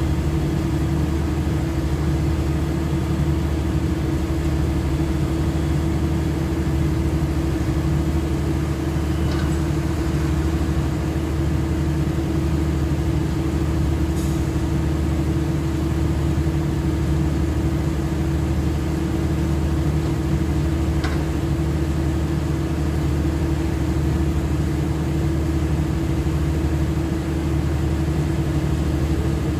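Heavy diesel engine running at a constant speed: a steady low drone with a held hum and no rise or fall, and a few faint clicks.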